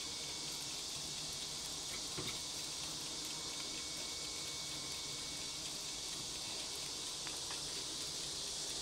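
Electric tabletop grill sizzling softly as chicken skewers cook, a steady even hiss, with a faint click or two.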